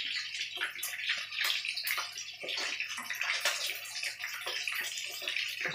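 Minced pork and shrimp balls deep-frying in a wok of hot oil: a steady sizzle with frequent crackles and pops.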